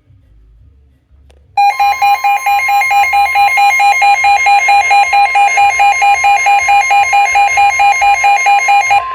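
Weather radio receiver's alert alarm beeping rapidly, about four beeps a second, starting about a second and a half in, over the steady 1050 Hz warning alarm tone that announces a severe thunderstorm warning broadcast.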